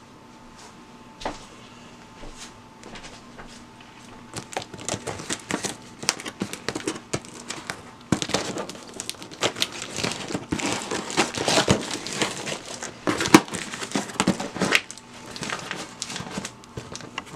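Packaging crinkling and rustling as hands open a sealed box of produce. The crackles are sparse at first and grow busier and louder from about four seconds in.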